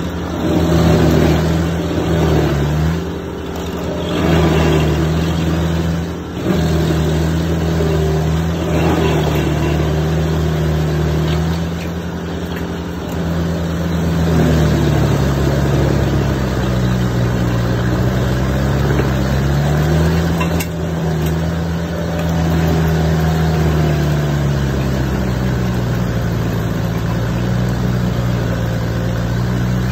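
Rayco RG100X stump grinder running hard while its cutter wheel grinds an oak stump. The engine note dips and recovers several times under the load, the biggest sags in the second half.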